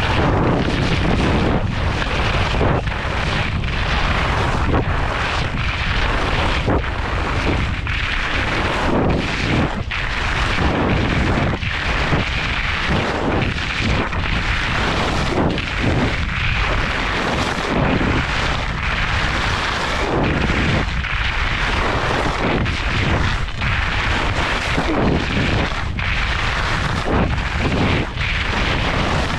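Skis scraping and carving over packed snow on a fast downhill run, mixed with heavy wind buffeting the microphone. The noise is loud and continuous, swelling and dipping every second or two.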